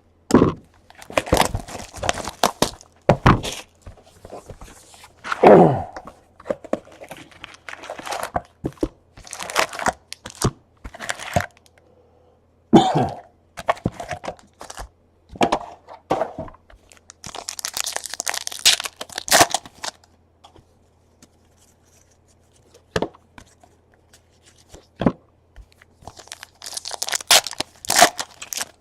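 Baseball card packs being opened and cards handled: foil wrappers crinkling and tearing, with irregular taps and clicks as cards and cardboard are shuffled. The crinkling comes in denser bursts about two-thirds of the way in and again near the end.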